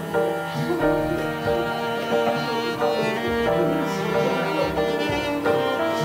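Background music played on bowed strings, a melody of held notes.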